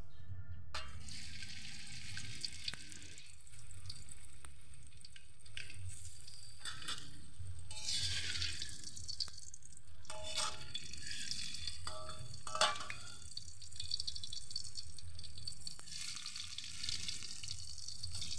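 Tofu pieces dropped into hot oil in a metal wok, the oil starting to sizzle suddenly about a second in and hissing steadily as they fry. A few sharp metallic clinks of a spatula against the wok come near the middle.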